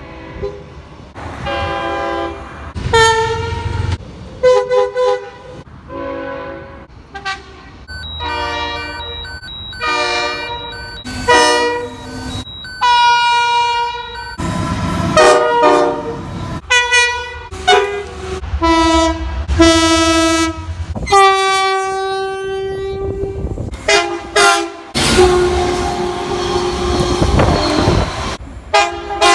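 Locomotive air horns sounding in quick succession, with sudden cuts between them: short toots and longer blasts, each a chord of several notes. Under them runs the rumble and rail noise of passing trains.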